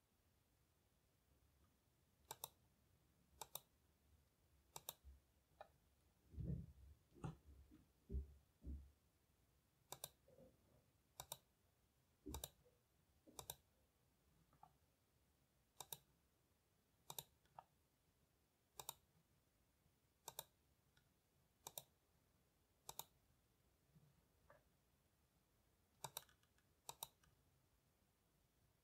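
Faint computer mouse clicks, short and sharp, about one every second or so. A few duller low knocks come about six to nine seconds in.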